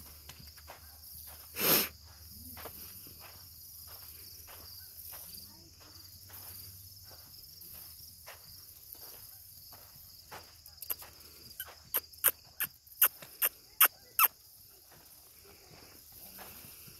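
A pinto pony's hooves trotting on arena dirt, faint even beats about three a second, over a steady high chirring of insects. A loud short burst comes about two seconds in, and a run of about eight sharp clicks a little past the middle.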